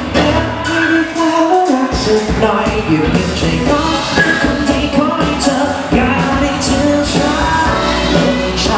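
Live band playing a Thai pop song, amplified: a male lead vocal over drums, bass and electric guitar, with a horn section of trumpet, saxophone and trombone. The bass and drums drop out for a moment about a second in, then come back in.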